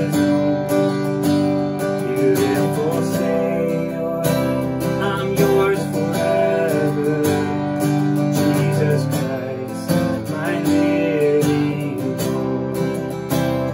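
A steel-string acoustic guitar strummed in steady chords, with a man singing a slow worship melody over it.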